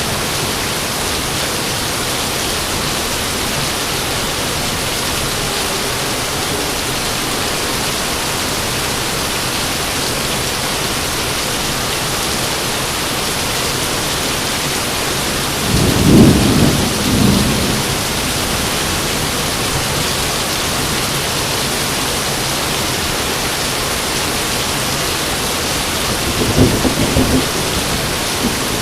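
Steady heavy rain with thunder rumbling twice, a louder roll a little past the middle and a weaker one near the end.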